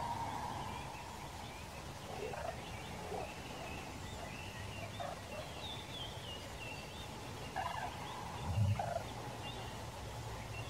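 A moose giving short, low grunts, the loudest about two-thirds of the way in, while small birds chirp high in the background.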